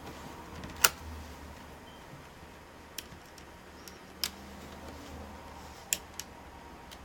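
A few scattered sharp clicks and taps of small laptop parts being handled during reassembly, over a low steady hum.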